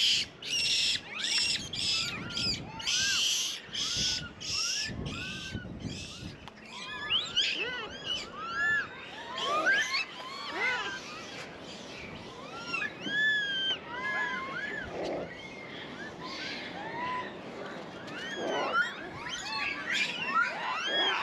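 Many Japanese macaques calling at once: short, arched coo calls and chirps that rise and fall, overlapping throughout. During the first several seconds a rapid run of short rustling or scuffing noises sounds along with them.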